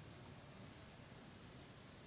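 Near silence: a steady faint hiss, with no thunder heard.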